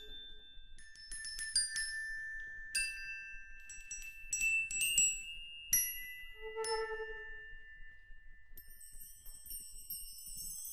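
Glockenspiel notes struck one by one with mallets, each ringing on and overlapping the next. About two-thirds through, a short low flute note sounds, and near the end a high, sustained jingling shimmer of small bells takes over.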